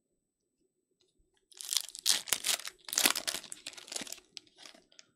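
Foil wrapper of a 2022 Topps Allen & Ginter Chrome baseball card pack being torn open and crinkled by hand: a run of crackling that starts about a second and a half in and fades out near the end.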